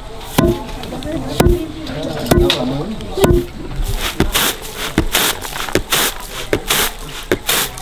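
Wooden pestle pounding rice in a mortar, four heavy thuds about a second apart. After about four seconds this gives way to a bamboo winnowing tray being worked, rice grains rasping and swishing across the woven bamboo in quick strokes, about three a second, as the husk is shaken off.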